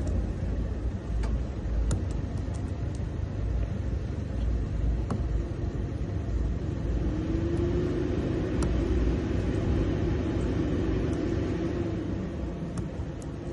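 Steady low rumble, with a few faint clicks and a faint hum swelling up in the middle.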